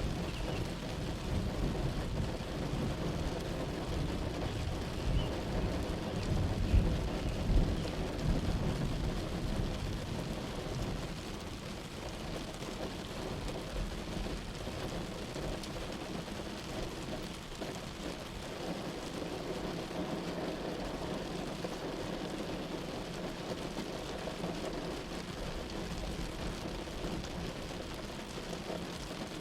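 Steady rain falling, with thunder rumbling heavily through the first third or so and then dying away, leaving the rain alone.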